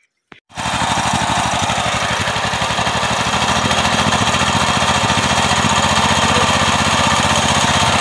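The small petrol engine of a walk-behind power tiller running steadily with a fast, even pulse, loud and close. It cuts in suddenly about half a second in.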